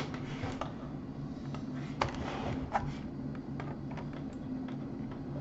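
Irregular light clicks and taps of a plastic laptop case and keys being handled, over a steady low hum.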